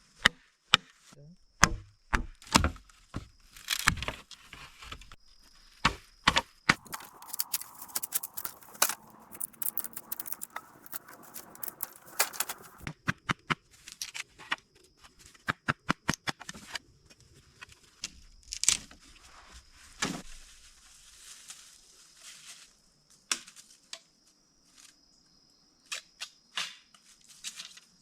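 A long run of sharp knocks and cracks, some in quick bursts, with rustling between them, typical of bamboo and grass being chopped and worked by hand. A steady high whine sits behind them at the start and again in the second half.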